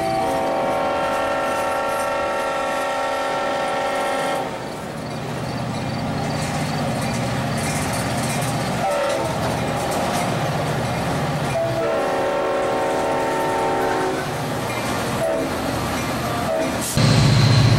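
Sound-equipped HO-scale Alco DL600 (RSD15) model diesel locomotive: a long multi-note horn blast, then the diesel engine rumbling, then a second horn blast about twelve seconds in. A louder low drone starts suddenly near the end.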